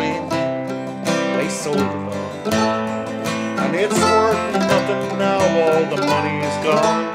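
Instrumental break of a folk song: a steel-string acoustic guitar strummed as accompaniment while a mandolin picks the melody.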